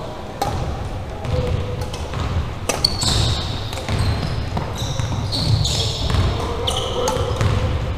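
A badminton rally: rackets hitting the shuttlecock with sharp knocks, several times, mixed with sneakers squeaking on the hardwood court and footsteps, all echoing in a large gym hall.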